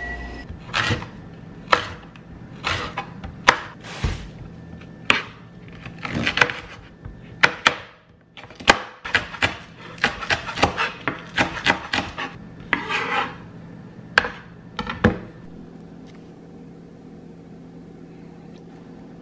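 Chef's knife chopping green onions on a wooden cutting board: a run of sharp, irregular knocks, quickest in the middle. They stop about three-quarters of the way through, leaving a faint steady room hum.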